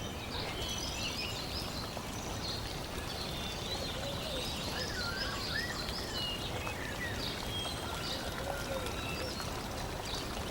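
Birds chirping and trilling over a steady rush of running water, a nature ambience.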